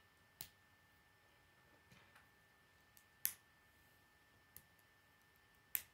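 K'nex plastic rods and connectors clicking as they are snapped together by hand: a handful of short, sharp clicks, the loudest about three seconds in and again near the end.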